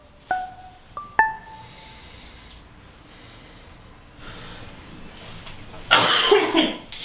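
A few short, ringing marimba-like notes in the first second or so. Then a person's loud, breathy vocal sound, a harsh burst of breath near the end.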